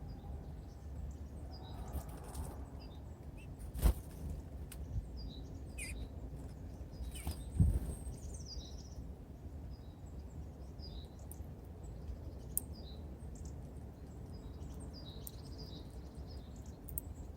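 Small songbirds at a winter feeder calling with short, scattered chirps over a steady low background rumble. Two loud sharp knocks come about four and seven and a half seconds in.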